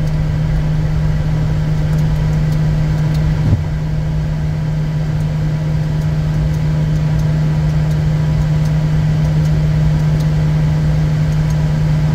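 Steady, loud drone inside the cockpit of a Bombardier Challenger 350 business jet: a strong low hum under a hiss, holding level without rising or falling. There is one brief click about three and a half seconds in.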